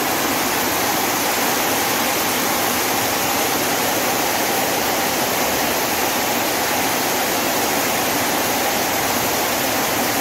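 Heavy rain in a steady, dense downpour, heard from under a corrugated metal shelter roof: an even, unbroken rushing hiss.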